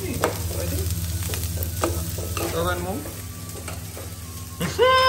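Peanuts, lentils, onion and green chillies sizzling as they fry in oil in a non-stick pan, stirred with a spoon that clicks and scrapes against the pan a few times, over a steady low hum.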